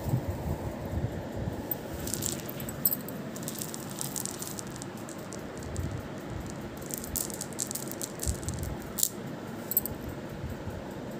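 Beaded tassels of pearl-like beads clinking and rattling as they are jiggled and batted about, in scattered bursts of light clicks that are busiest a little after two seconds and again from about seven to nine seconds in, with a few low handling bumps.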